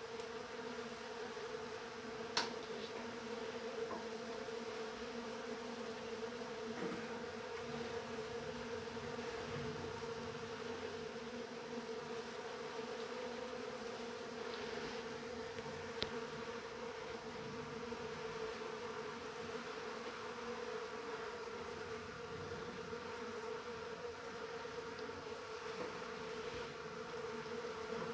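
Honeybees buzzing in a steady, slightly wavering hum around an open honeycomb frame as its wax cappings are cut off, with two sharp clicks, one about two seconds in and another about halfway through.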